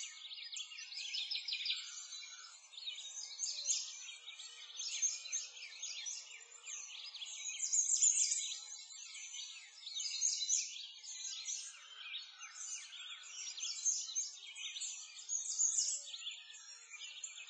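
A dense chorus of many small birds chirping and twittering at once: continuous high chirps with nothing low underneath.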